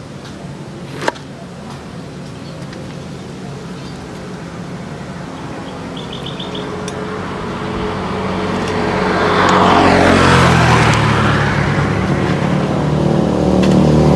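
Motor vehicles passing on the road. An engine grows louder to a peak about ten seconds in, eases off, then a second one approaches near the end.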